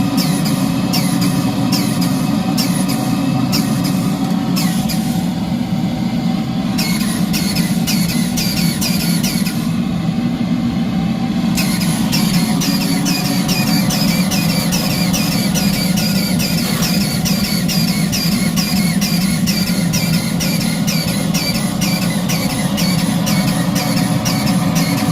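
3-inch scale Fowler DCC traction engine running on steam: a rapid, regular beat of short sharp sounds, about four a second, that stops twice for a second or two, over the steady rushing of the propane blowtorch firing its boiler.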